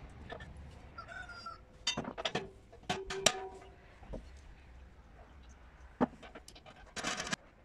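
Metal clinks and knocks from a stainless-steel washing-machine drum as it is handled on its welded steel stand. The loudest is a sharp clink about three seconds in that rings briefly, and a short noisy burst comes near the end.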